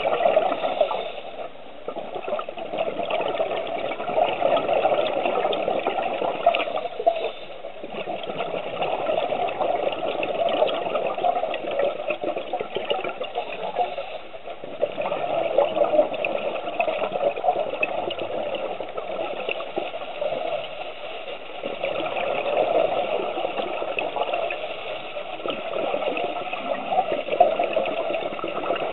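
Scuba regulator breathing underwater: a rushing and bubbling of exhaled air that swells and fades with each breath, about every six seconds.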